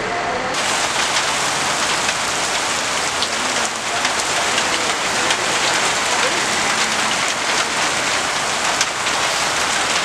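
Heavy rain pouring down onto wet pavement and parked buses: a dense, steady hiss dotted with fine drop impacts. It cuts in abruptly about half a second in.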